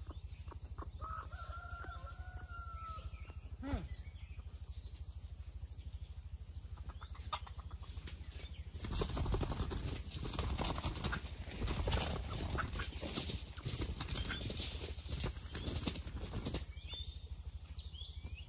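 A rooster crows once, a pitched call lasting about two seconds. From about nine seconds in comes a louder stretch of rustling and wing flapping that lasts some seven seconds.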